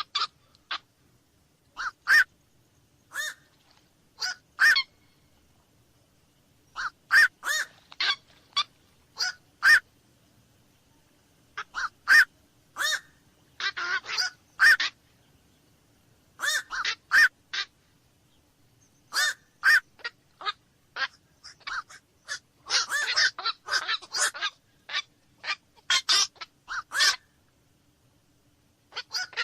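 Night heron (kowak-malam) calling: short harsh single-note croaks, given singly or in quick runs of two or three, with pauses of a second or more between runs. Around two-thirds of the way through, the calls crowd together and overlap for a couple of seconds.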